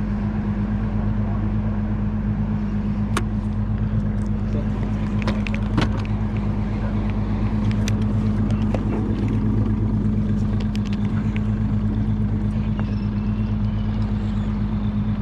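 Boat engine running with a steady low drone, with scattered sharp clicks and knocks over it.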